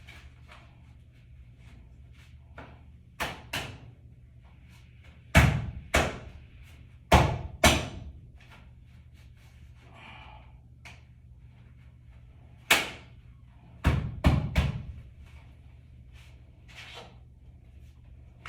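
About eleven sharp knocks and clacks, mostly in quick pairs or threes with pauses of a few seconds between, from hard parts of an under-carpet cable raceway being handled and snapped into place.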